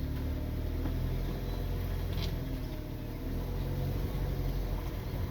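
Hyundai Veloster's engine running steadily as the car pulls away, heard from inside the cabin, with no belt squeal or bearing noise: the new accessory belt and idler pulley have cured the complaint.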